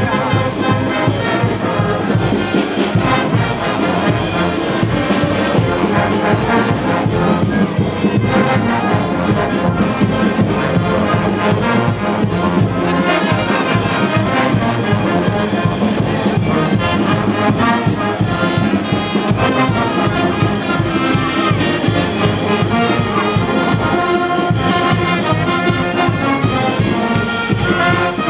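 Brass band playing a lively tune over a steady drum beat, with trumpets and trombones carrying the melody.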